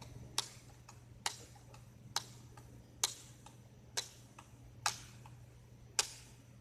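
Steady ticking: seven sharp ticks a little under a second apart, each followed by a fainter tick, in a tick-tock rhythm over a low steady hum.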